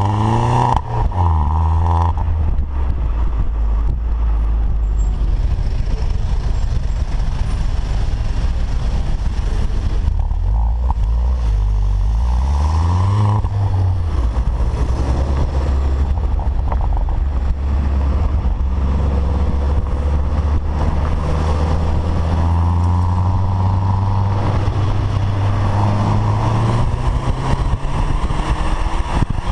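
Citroën DS3 exhaust with its intermediate (centre) muffler removed, heard at the tailpipe while driving. The engine note rises and drops back near the start and again about twelve to fourteen seconds in, and otherwise holds a steady low drone at cruise.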